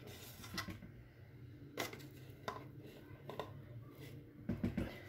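Crumbled fresh ricotta being tipped from a bowl into a plastic blender jar: faint scattered taps and clinks of the bowl and jar, with a quick cluster of taps near the end.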